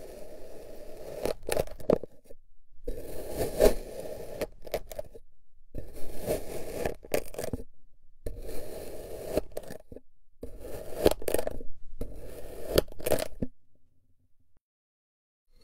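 A knife blade slicing through packed kinetic sand: about six slow cuts, each a couple of seconds of gritty scraping crunch with small crackles, with short pauses between, stopping near the end.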